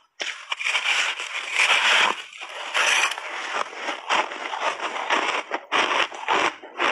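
Refrozen shaved ice crunching in the mouth, bitten and chewed in big mouthfuls: dense, irregular crackling crunches without a pause.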